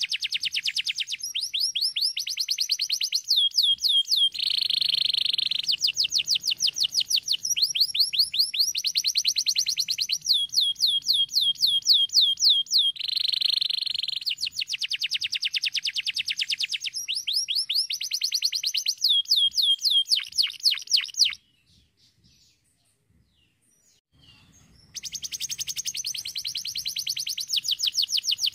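Domestic canary singing: a fast, high-pitched song of rapid trills and rolls, phrase after phrase. It breaks off for a few seconds about three-quarters of the way through, then starts again.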